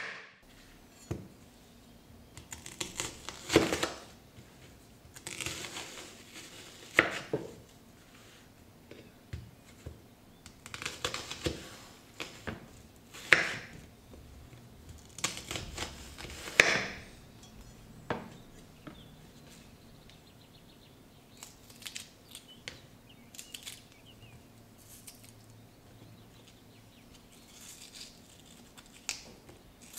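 Chef's knife cutting through a white onion on a wooden cutting board: a series of crisp crunches, several ending in a sharp knock, over the first half. After that, fainter crackling and snapping as the onion's layers are pulled apart by hand.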